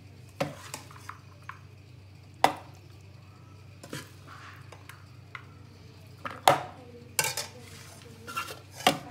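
A metal spoon scraping and knocking against a metal pot and a plastic food processor bowl as a cooked chicken and lentil mixture is spooned in. There are several sharp knocks, the loudest about two and a half seconds in and about six and a half seconds in.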